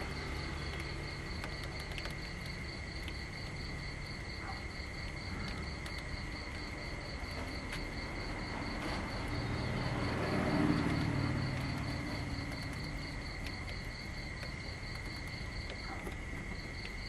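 Outdoor insects chirping steadily: one steady high trill and another regular, evenly pulsed chirp above it. A low rumble swells about ten seconds in and fades again.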